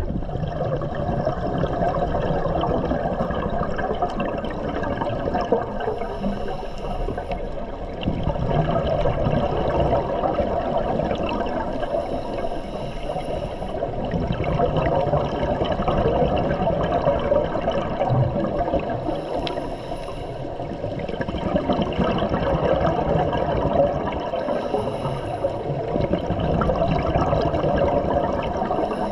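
Scuba breathing underwater, heard through a GoPro's waterproof housing: exhaled bubbles bursting from a regulator in long rushing surges, with a faint regulator hiss on each inhale, about every six seconds.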